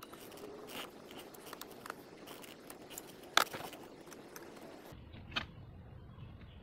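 Hands prying and pulling a 1979 Mercedes W116 centre-console switch panel out of the dashboard: rustling and scraping with scattered light clicks. There is one sharp click about three and a half seconds in and a smaller one about two seconds later.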